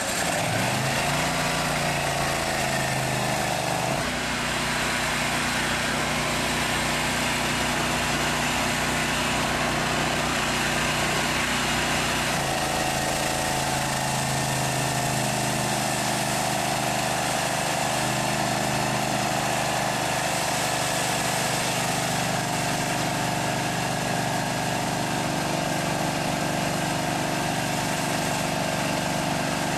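Petrol engine of a high-pressure drain jetter, pull-started and catching at once, rising in speed in the first second, then running steadily under load with a hiss of water jetting from the screwdriver nozzle out through a drain pipe. The engine note shifts about four seconds in and again around twelve seconds.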